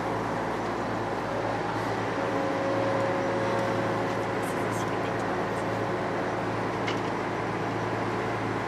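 Small diesel ferry's engine running steadily under way, a constant low hum with mechanical noise, and a thin steady whine joining in through the middle.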